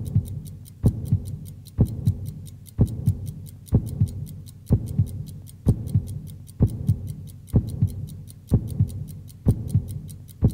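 A slow, steady soundtrack beat like a heartbeat: a deep double thump about once a second, with a fast, even high ticking over it.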